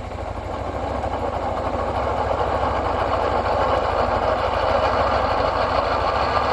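Suzuki Burgman 400 scooter's single-cylinder engine idling, with a steady mechanical noise from the rear transmission hub that grows louder over the first couple of seconds. The owner likens it to an idler or throwout bearing; it is heard only at idle or low rear wheel speed.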